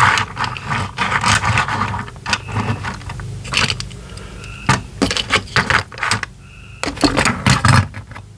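Small toy cars handled and set down on a cardboard box floor: scattered light clicks, clacks and scrapes as they are picked up and lined up.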